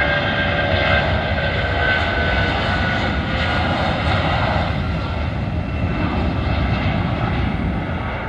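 Jet engines of a Boeing 757-24A(PF) freighter at takeoff thrust as it rotates and climbs away: a loud, steady rumble with whining tones over it. The whine weakens and the sound eases slightly over the second half.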